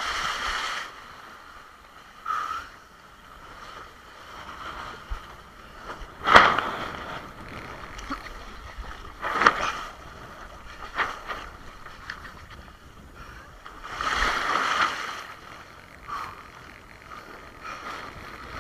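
Spray and chop splashing against a Fanatic Bee windsurf board and its sail as it sails through choppy water, over a low rush of water and wind. Sudden splashes come every few seconds, the loudest about six seconds in, with a longer spell of spray around fourteen seconds.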